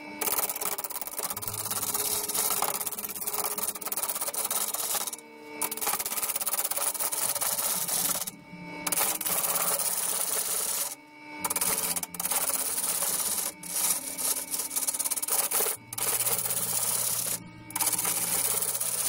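A quarter-inch bowl gouge roughing the rim of an out-of-round, glued-up sapele blank on a slowly turning wood lathe, knocking the corners off. It makes a continuous scraping, chattering cut that stops briefly several times.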